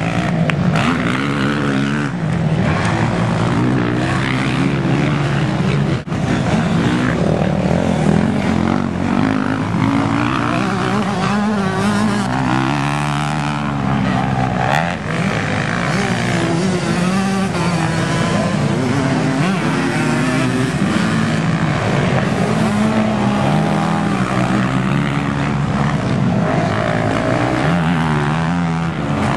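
Motocross dirt bike engines revving hard and easing off again and again as the bikes race round the dirt track.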